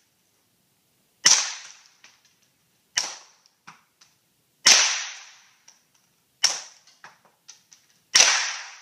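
Suppressed .22 LR Browning Buck Mark pistol, with a Guardian 22 suppressor run wet, fired five times at a steady pace, roughly one shot every second and three quarters. Each shot has a sharp crack that dies away, followed by a few small metallic clicks.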